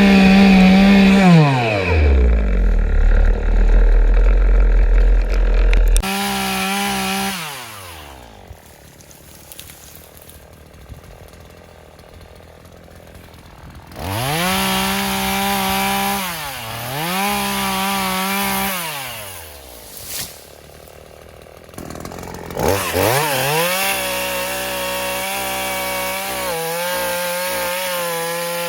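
Craftsman 18-inch gas chainsaw revved up and down repeatedly while cutting small trees, dropping back between cuts, then held at a steady run near the end. A few seconds of heavy low wind rumble on the microphone come early.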